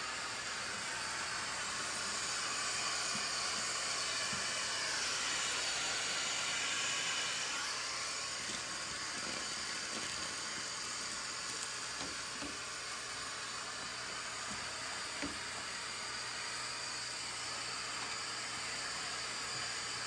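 Vacuum cleaner running steadily, its hose nozzle sucking dirt and debris off a golf cart's empty battery tray. The pitch of the rushing air dips and rises between about four and eight seconds in as the nozzle moves, and there are a few faint clicks.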